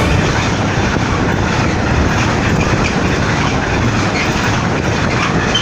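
Freight train of covered hopper wagons rolling past at close range: a steady, loud noise of wagon wheels running on the rails.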